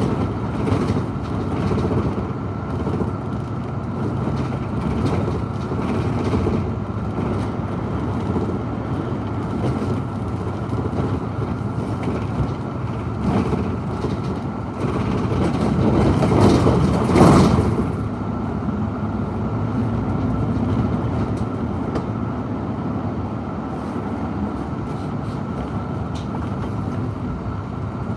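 Steady rumbling wind and movement noise on the microphone as it travels along a road, with one louder whoosh that rises and falls about two-thirds of the way in.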